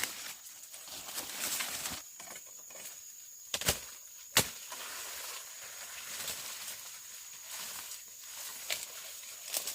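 A few scattered sharp knocks, a second to several seconds apart, over a faint steady high-pitched whine and background hiss.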